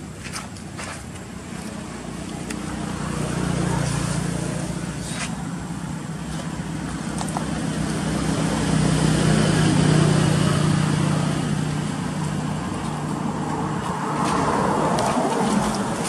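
Engine noise of motor vehicles going by, a low steady hum that swells and fades three times, with a few short sharp clicks.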